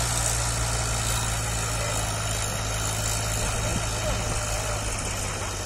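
Powertrac 434 RDX 35 hp tractor's diesel engine running steadily under load while pulling an 18-disc harrow, a constant low drone.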